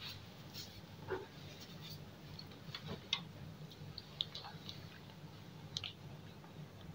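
Quiet hand-eating sounds: fingers working rice on a plastic plate and a mouthful being chewed, heard as a few scattered soft clicks and smacks over a low steady hum.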